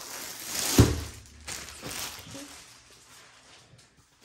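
Clear plastic bag rustling as a rolled canvas is pulled out of it, with one dull thud about a second in as the roll comes down on a wooden table, then a few lighter rustles.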